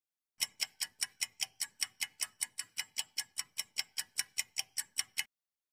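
Countdown-timer sound effect: a clock-like ticking, about five ticks a second, that stops abruptly shortly before the end.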